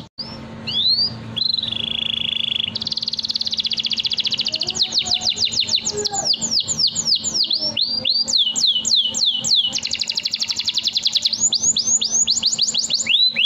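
Domestic canary singing a long, continuous song: fast rolling trills alternate with runs of slower, downward-sweeping whistled notes, high in pitch.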